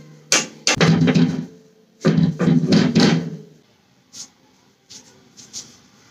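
Two sharp knocks, then two rattling, scraping stretches of about a second each, then a few faint ticks: a window and its frame being knocked about and rubbed during cleaning.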